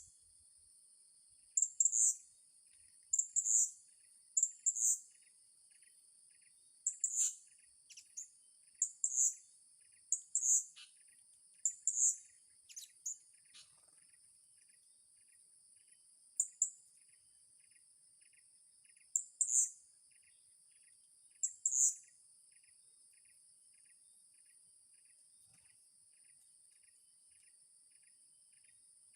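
Short, high-pitched chirps of blue-crowned hanging parrots (serindit), singly and in quick pairs, stopping about three quarters of the way in. Underneath, a steady high insect drone and a cricket chirping about twice a second.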